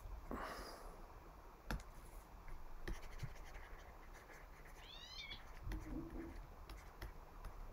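Faint scratching of a stylus writing on a pen tablet, with a few light taps and clicks.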